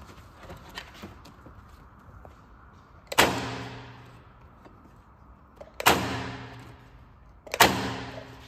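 Isaberg Rapid A106 electric stapler firing three staples, each a sharp clack followed by a ringing tail of about a second, spaced a couple of seconds apart as the paper is moved along between strokes.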